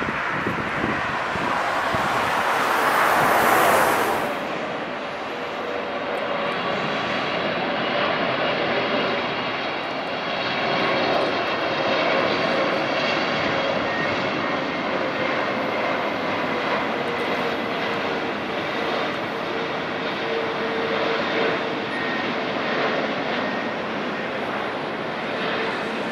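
Jet engines of a heavy wide-body airliner: a loud rushing swell about three seconds in, then a steady engine noise with high-pitched whining tones over a hum that slowly drops in pitch.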